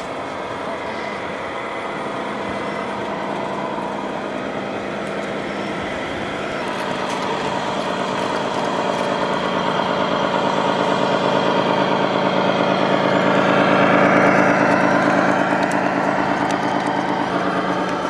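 Engine sound of radio-controlled scale trucks, a steady diesel-like drone that swells louder toward the middle and eases off again.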